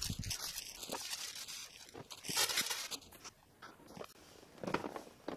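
Clear plastic shrink wrap crinkling and rustling as it is pulled off a large cardboard box, loudest about two and a half seconds in, then quieter handling of the box.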